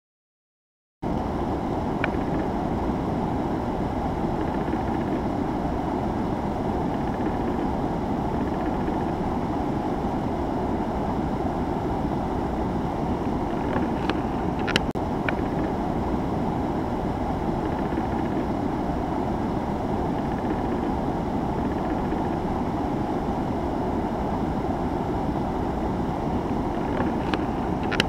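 Water pouring over a low river weir into foam below: a steady, full rushing noise that cuts in abruptly about a second in. A few faint, brief high sounds come through near the middle and the end.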